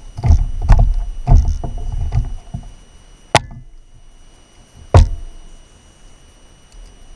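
Hollow thumps and knocks on a plastic kayak hull, from a landed yellowtail being handled on deck, bunched in the first two and a half seconds. Two sharp clicks follow, about a second and a half apart.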